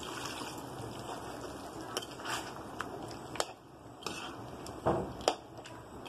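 A metal spoon stirring thick chicken curry in a metal pan, with a few sharp clinks and scrapes against the pan over a steady low background noise.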